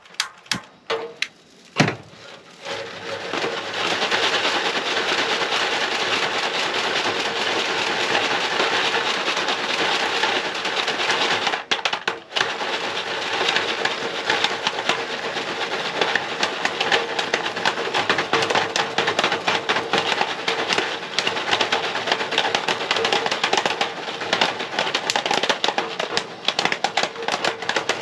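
Popcorn kernels popping in a foil pan over a propane camp-stove burner: a few clicks near the start as the burner is lit, then dense rapid crackling from about three seconds in.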